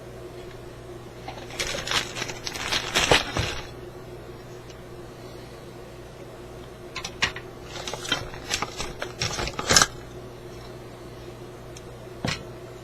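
Clicks and light metallic knocks from a car radio's parts and tools being handled on a workbench, in two busy spells and a last single click near the end, over a steady low hum.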